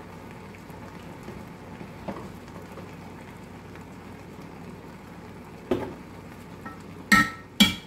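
Onions sizzling and bubbling steadily in a nonstick frying pan. Near the end come a few sharp metallic clinks as the pan is handled, the last two ringing briefly.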